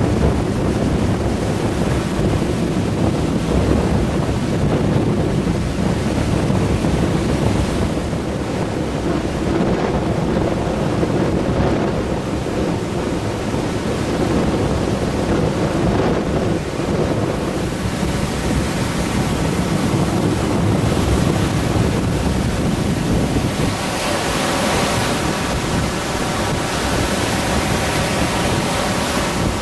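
Baltic Sea surf breaking continuously on the shore in rough, windy weather, with wind rumbling on the microphone.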